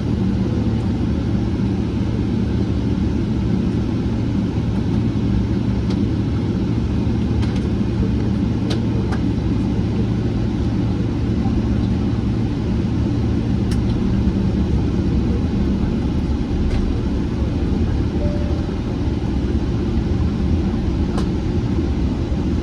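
Steady cabin rumble inside a Boeing 777-300ER from its engines and the airflow, with a low, even hum and a few faint clicks.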